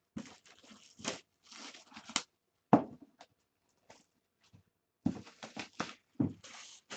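Trading-card box packaging being torn open and crinkled by hand, in short irregular bursts of tearing and rustling, with a sharp knock about three seconds in.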